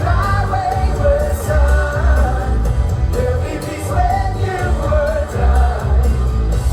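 Pop music with a singing voice over a heavy bass beat.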